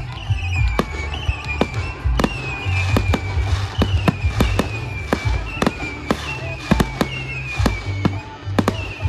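Aerial fireworks shells launching and bursting, a rapid run of sharp bangs and crackles several times a second. Music plays underneath.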